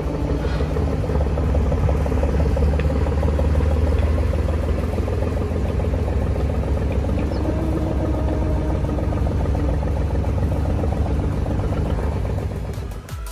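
Boat engine running steadily with a deep hum, cutting off near the end.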